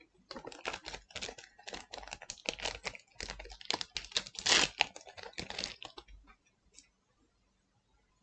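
Digimon trading cards being handled and slid past one another, a quick run of small clicks and rustles that stops about six seconds in.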